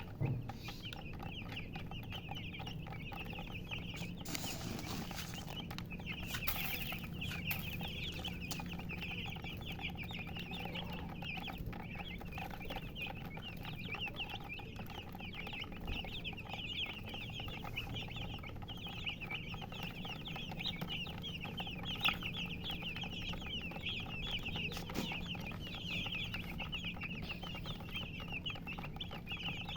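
A group of baby chicks peeping continuously, many short high chirps overlapping without a break.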